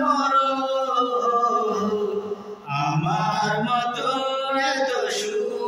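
Two men singing a Bengali film song together without accompaniment, holding long notes, with a short break about two and a half seconds in.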